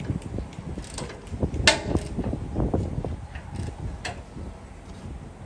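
Hand ratchet wrench clicking and metal clanking as bolts on a steel truck bumper mount are worked from underneath; one sharp clank about a second and a half in.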